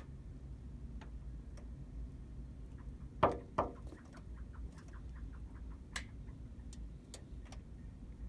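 Northern flicker striking its beak against window glass: scattered sharp taps, two louder ringing knocks about three seconds in, then a quick run of faint ticks and a few more single taps. The bird is taken to be challenging its own reflection.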